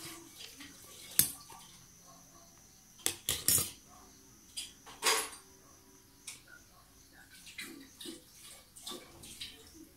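A metal spoon clinking against a stainless steel plate in a few sharp, short strikes: one about a second in, three in quick succession around three seconds, and another near five seconds, with fainter ticks after.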